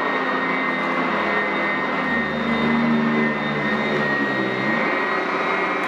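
Sanitaire SC899F commercial upright vacuum running on carpet: a steady high motor whine over a lower hum. The lower hum shifts in pitch through the middle as the vacuum is pushed across the carpet.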